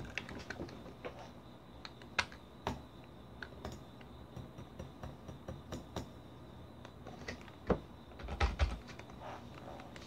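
Typing on a computer keyboard: irregular key clicks, a few a second, with several louder, heavier keystrokes near the end.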